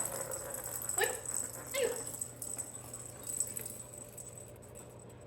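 A small cat toy ball rattling as it is batted about, with two short pitched calls about one and two seconds in. The rattling fades toward the end.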